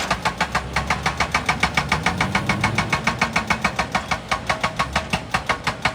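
An engine running with a steady, even knock of about seven or eight beats a second.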